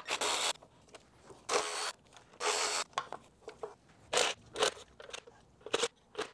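Cordless power tool spinning a socket on a long extension to run bolts out, in short bursts: three runs of about half a second in the first three seconds, then several quicker brief spurts.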